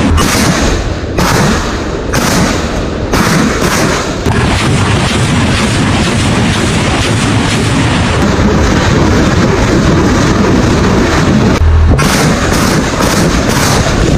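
BM-21 Grad multiple rocket launcher firing a salvo: rockets leaving the tubes in rapid succession, sharp cracks at first that merge into a continuous loud roar, briefly broken shortly before the end.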